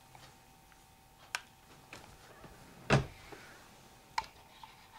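Scattered clicks and knocks of a phone being handled after a dropped call, the loudest a thump about three seconds in, over a faint steady tone.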